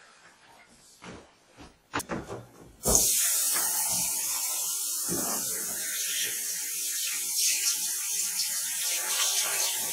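A few clicks and knocks, then a kitchen tap is turned on about three seconds in and water runs steadily into a stainless steel sink.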